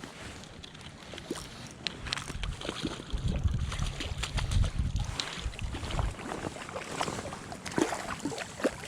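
Water splashing and sloshing as a hooked trout is played and landed at the water's edge, with scattered sharp knocks and clicks of handling. A low rumble swells about three seconds in and fades about three seconds later.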